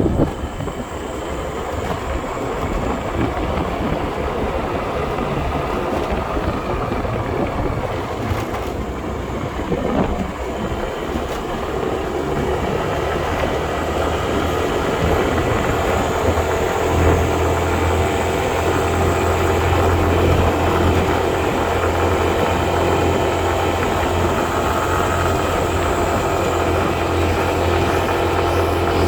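A motor vehicle engine running steadily while travelling, with road and wind noise; a low engine hum grows stronger about halfway through.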